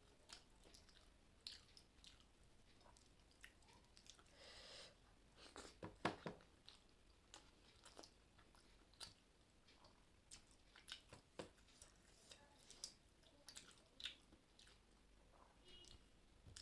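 A person chewing and eating rice with curry: soft, irregular mouth smacks and faint clicks, a little louder for a moment about six seconds in.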